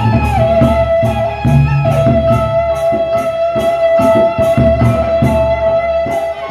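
Sasak gendang beleq gamelan ensemble playing: large double-headed barrel drums beat under ringing gongs and metal kettle-gongs, with cymbals clashing in a steady pulse and one high note held over the music.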